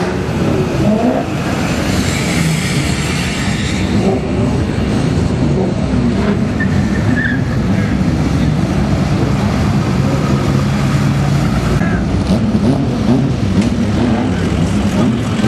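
Diesel pickup truck engines running at the drag strip's start line, steady and loud, with a stretch of extra hissing noise between about one and four seconds in.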